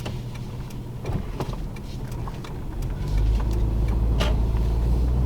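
Car driving, a steady low engine and road rumble heard from inside the cabin that grows louder about three seconds in, with a few faint clicks.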